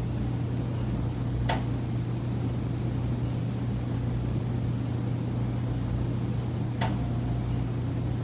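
Two sharp knocks about five seconds apart, the second with a brief metallic ring, over a steady low hum: the recurring knocking heard every day in a high-rise condo unit, which the tenant traces to the building's common elements.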